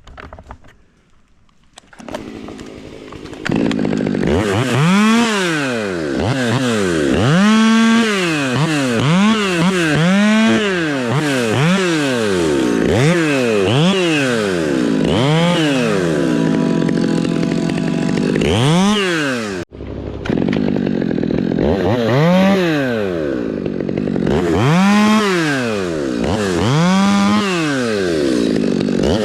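Chainsaw cutting wood, its engine revving up and dropping back again and again, roughly once a second. It starts up a couple of seconds in and cuts out for an instant about two-thirds of the way through.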